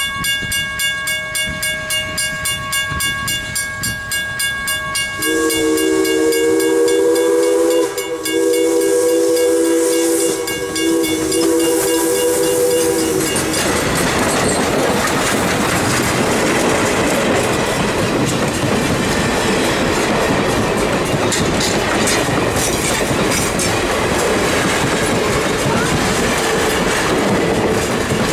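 Grade-crossing bell ringing steadily as ALCo 2-8-2 steam locomotive #40 approaches. About five seconds in, its steam whistle sounds a three-note chord for about eight seconds, broken briefly twice, and the whistle cuts off as the locomotive and its passenger coaches pass close by in a loud rush with clickety-clack of wheels over the rail joints.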